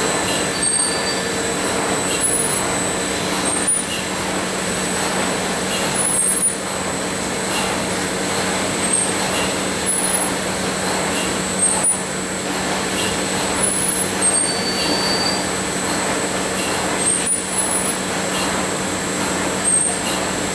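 Plastic extrusion line for polymer pencils running: a steady machine noise with a constant low drone and a thin high whine.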